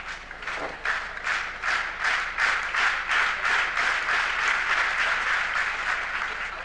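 Spectators clapping together in time, a steady beat of about three claps a second over general crowd noise, fading out near the end.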